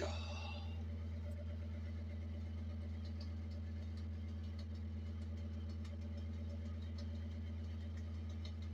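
Steady low machine hum, unchanging throughout, with a few faint clicks and a brief higher-pitched sound right at the start.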